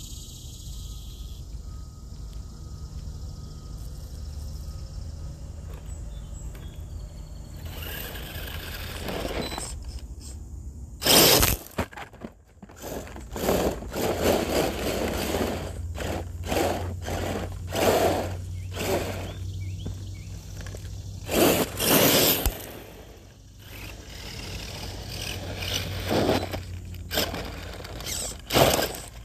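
Radio-controlled mud truck driving over loose gravel and dirt. A low steady hum gives way, about eleven seconds in, to repeated loud scraping and crunching as its tyres dig in and throw gravel, with a steady low motor tone under it for a while.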